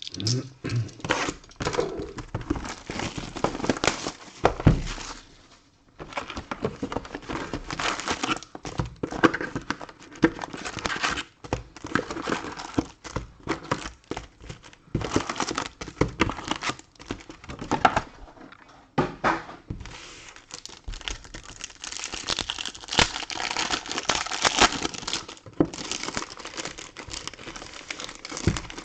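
Wrappers crinkling and tearing as a sealed box of trading cards and its packs are torn open by hand, a dense run of crackling and sharp rustles with a short pause about six seconds in.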